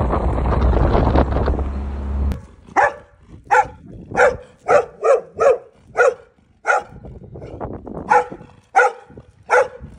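A steady, loud rushing noise cuts off sharply about two and a half seconds in. Then a dog barks repeatedly, about a dozen sharp barks at a quick, even pace, pausing briefly partway through.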